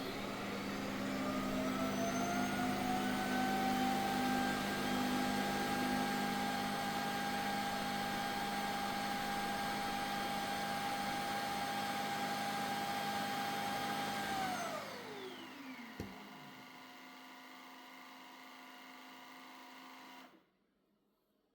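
A Shark robot vacuum's suction motor spins up with a rising whine and runs steadily for about fourteen seconds. It then winds down with a falling whine, followed by a click and a faint hum that cuts off near the end.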